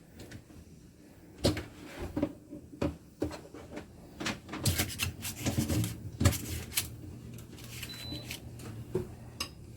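Clicks, knocks and clatter of kitchen things being handled, with a low steady hum coming in about halfway and a short high electronic beep near the end.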